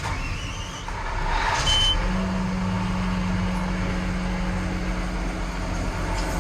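A machine's engine running steadily, with a steady low hum that settles in about two seconds in and a brief high tone just before it.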